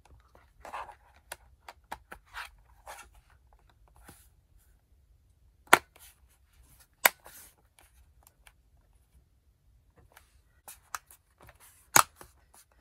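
Small plastic clicks and handling noises from a laptop being put back together: soft scraping and tapping with three sharp, louder clicks spread through, typical of a plastic cover panel and parts being handled and pressed into place.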